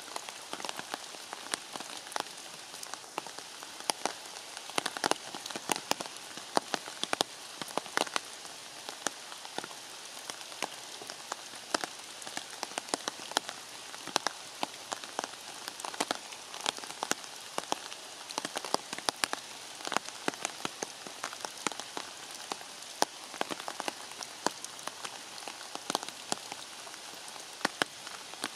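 Steady rain falling, an even hiss broken by many sharp, irregular taps of drops landing close by.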